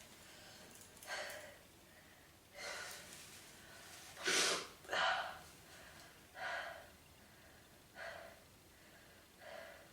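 A woman's short, noisy breaths, about seven of them roughly a second and a half apart, the two in the middle the loudest, between sneezes in a sneezing fit.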